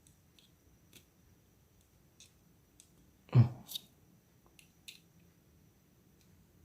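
Small metal clicks from the stiff, hidden lanyard loop of a Leatherman Surge multitool being worked open with the fingers, with one louder thump about halfway through.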